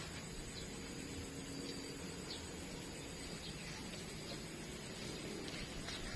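Quiet outdoor ambience: a steady low rumble with faint, scattered short high chirps.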